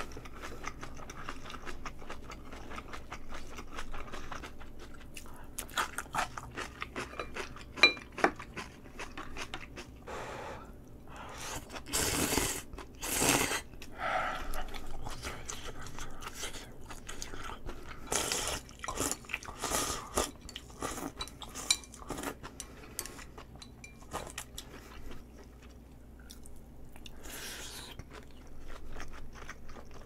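A person chewing food close to a microphone: wet chewing and crunching with many small clicks, and a few louder noisy bursts about halfway through.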